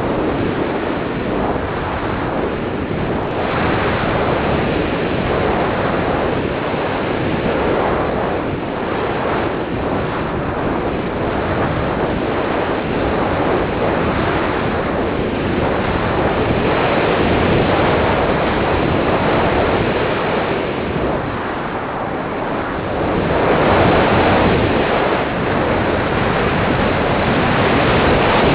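Wind rushing over the microphone of an onboard camera on a radio-controlled slope-soaring glider in flight. It is a steady rush of air with no motor tone, swelling and easing with airspeed, and it grows louder about 23 seconds in and again near the end as the glider dives toward the ground.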